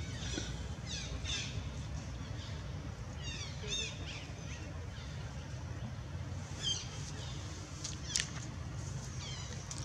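Infant macaque crying in short, high-pitched squeals, in scattered bouts several seconds apart: a baby's cry to nurse while its mother weans it. A steady low rumble runs underneath.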